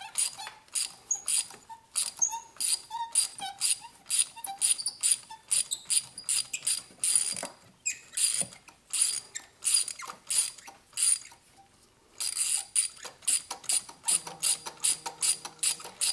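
Ratchet wrench clicking in a quick, steady run, several clicks a second, as it turns a spark plug socket to loosen spark plugs. There is a short pause about twelve seconds in.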